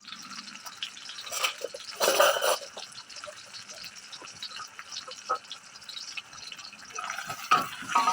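Water splashing and dripping, with a louder pour about two seconds in and scattered small knocks and clicks.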